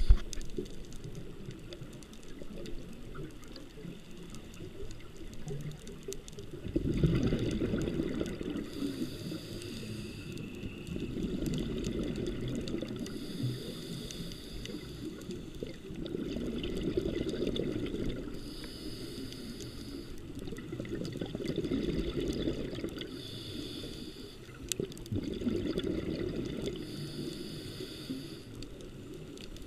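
Scuba diver breathing through a regulator: a rumbling rush of exhaled bubbles about every four to five seconds, each followed by a short hissing inhale.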